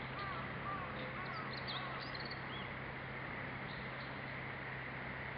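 Faint bird calls, a few short chirps and rising notes in the first half, over a steady outdoor hiss and a low hum.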